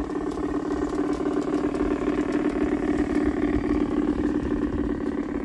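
LGB side-rod diesel model locomotive running along garden-railway track with its passenger cars, giving a steady engine-like drone with a fast flutter. It eases slightly near the end as the locomotive moves off.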